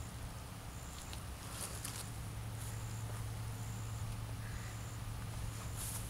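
Plastic wrap crinkling in a few short bursts as it is pulled off a steel pole, over a steady low hum and a short high chirp that repeats about once a second.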